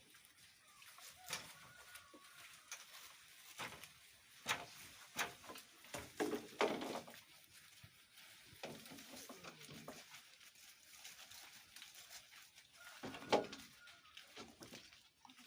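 Young goat kids bleating briefly a couple of times, about halfway through and again near the end, among scattered light taps and rustles.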